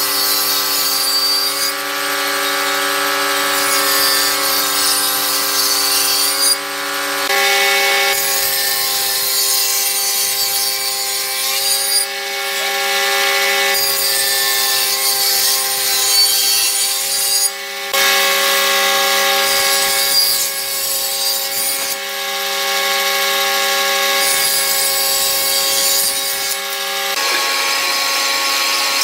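Table saw of a combination woodworking machine running with a steady whine and cutting through wood in repeated passes: each cut is a long rush of sawing noise, with short breaks between. Near the end the sound changes to a bandsaw running.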